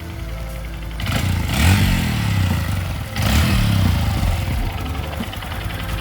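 2022 Honda Grom's small single-cylinder engine idling, with the throttle blipped twice, about a second in and again about three seconds in.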